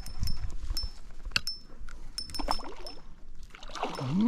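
Water splashing and trickling, with scattered sharp clicks. Near the end comes a short pitched sound that rises and then falls.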